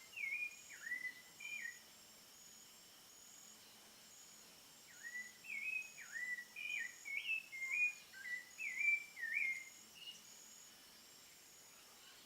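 A thrush singing two phrases of clear, whistled, slurred notes: a short phrase at the start and a longer one from about five seconds in. A faint, steady, pulsing insect chirr runs underneath.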